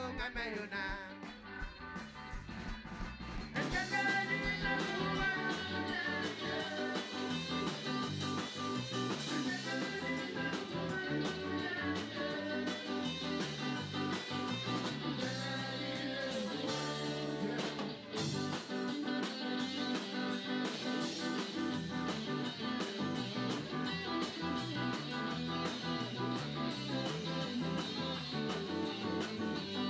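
Amplified live rock band playing a song on electric guitars, bass guitar and drum kit, with singing. It is thinner for the first few seconds, and the full band comes in at full strength about four seconds in.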